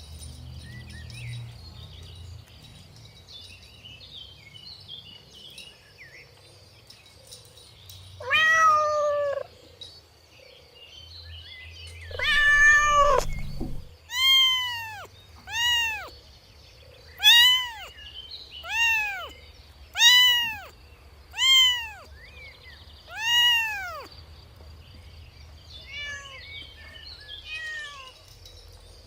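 Kitten meowing: two longer meows, then a run of about seven short meows, each rising and falling in pitch, about one and a half seconds apart.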